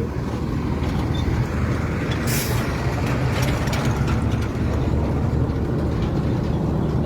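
An engine running steadily with a low hum, with a brief hiss about two seconds in.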